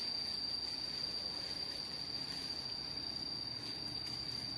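Insect drone in tropical forest: one steady, high-pitched buzzing tone that holds a single pitch.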